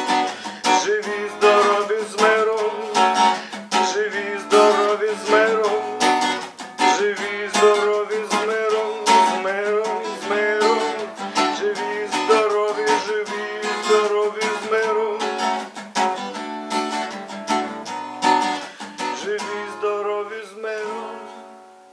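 Acoustic guitar strummed through chords as the song's instrumental ending, fading away near the end.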